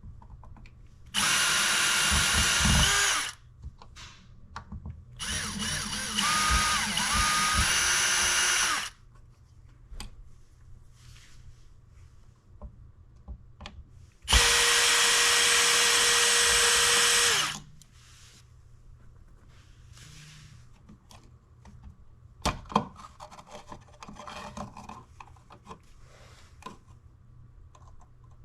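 Electric drill-driver running in three spurts of a few seconds each, backing out the screws of the old wall outlet and its face plate. Light clicks and handling of parts follow near the end.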